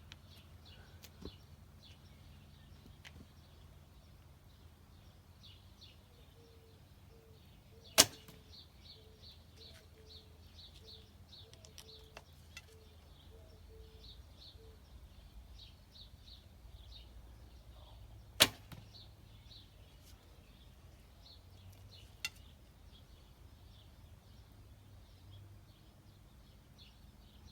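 A traditional bow, its string fitted with cat whisker silencers and brush buttons, shot twice about ten seconds apart: each shot is a single short, sharp snap of the string and arrow. A weaker click follows a few seconds after the second shot. This is a test of how quiet the silenced bow is.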